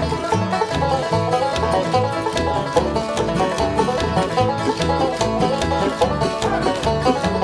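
Upbeat banjo-led bluegrass-style backing music with a steady bass beat and quick plucked notes.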